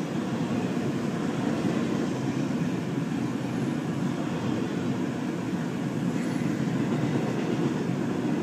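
Florida East Coast Railway intermodal freight train's cars rolling past a grade crossing: a steady, unbroken rumble of wheels on rail.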